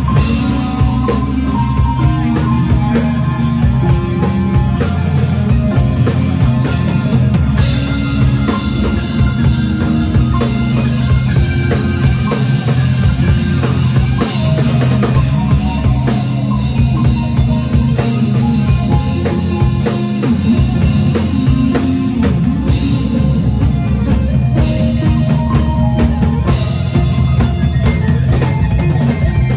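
Band music led by a drum kit, with bass and guitar.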